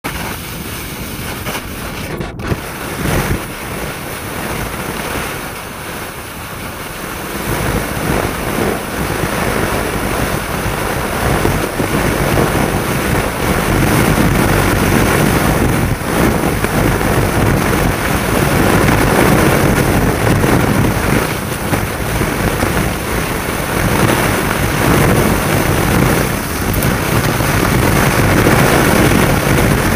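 Wind rushing over the microphone together with a cross-country ski running over packed snow, a continuous rushing noise that grows louder from about eight seconds in as the descent picks up speed.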